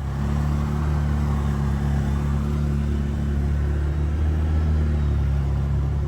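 Engine of a Can-Am 6x6 off-road utility vehicle running at a steady speed, a constant low drone with no revving.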